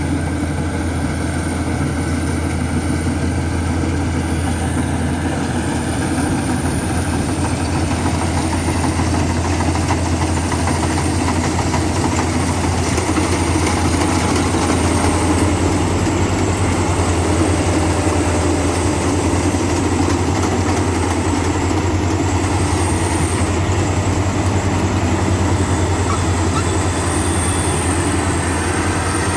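A heavy machine's engine running steadily at a constant speed, with a continuous low hum.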